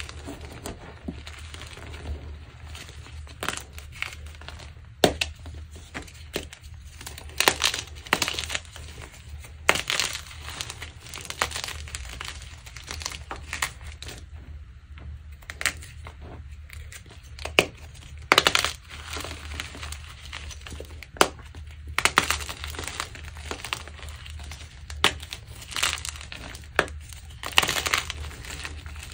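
Dyed gym chalk being crushed and crumbled: irregular crisp crunches and crackles, a few sharp and loud, with softer crumbling between.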